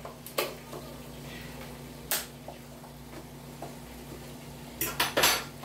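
Kitchen items clicking and knocking as they are handled at the stove: a few isolated sharp clicks, then a quick cluster of louder knocks near the end, over a steady low hum.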